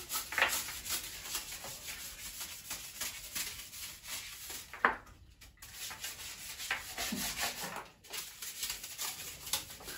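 Stiff brush scrubbing bathroom surfaces in rapid repeated strokes, with a short break about five seconds in.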